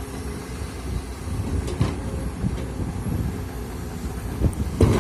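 Komatsu PC200 hydraulic excavator's diesel engine running with a steady low rumble as the bucket digs into wet soil. A few knocks break through, the loudest just before the end.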